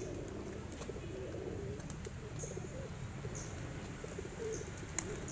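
Pigeons cooing in repeated warbling phrases, with a few short high chirps and one sharp click near the end, over a steady low background rumble.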